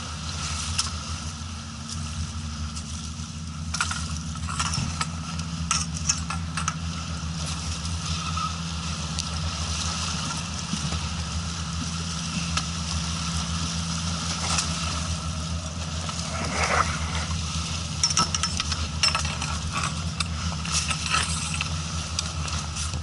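An engine running at a steady idle, with scattered clicks and knocks over it.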